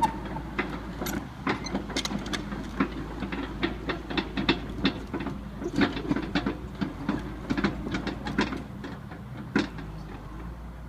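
Daewoo Solar 130 excavator at work: its diesel engine runs steadily beneath many sharp, irregular metal clanks and knocks. The clanking stops near the end while the engine keeps running.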